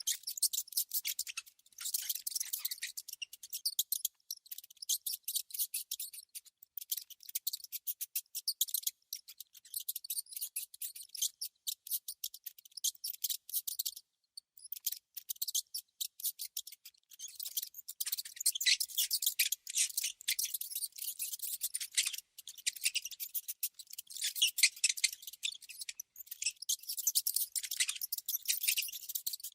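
Rodent clicking and scratching: rapid, dry, high-pitched clicks in dense runs, with a short break about halfway through.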